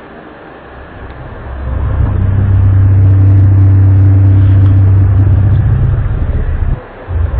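A loud, low droning hum of unexplained origin, of the kind presented as a strange sound from the sky. It swells in over the first two seconds, holds one steady low pitch, breaks off briefly near the end and then returns.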